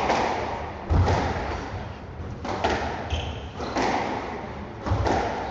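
Squash rally: the ball struck by rackets and hitting the court walls, sharp thuds about once a second that echo in the court, with a brief shoe squeak on the floor about three seconds in.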